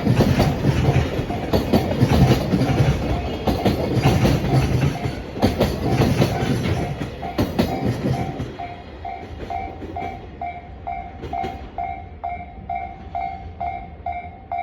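Koki container wagons of a freight train rumbling and clattering over the rail joints at a level crossing, the train's noise dying away about eight seconds in. The crossing's warning bell is ringing all the while, and once the train has gone it is the loudest sound, an even two-tone ding about one and a half times a second.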